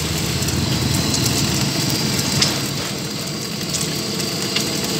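Steady roar of a gas burner under a wok frying an egg, with a few light clicks.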